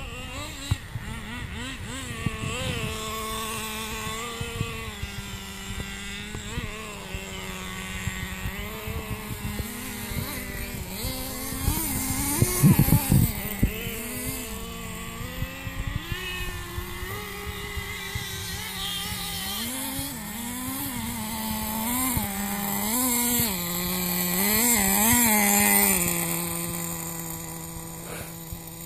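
Radio-controlled car's motor running as it is driven across grass, its pitch rising and falling again and again with the throttle. A louder spell of sharp knocks comes about halfway through.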